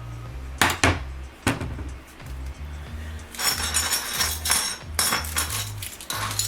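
Background music with a stepping bass line. Over it come a few sharp clicks in the first second and a half, then a longer run of clatter about three and a half seconds in.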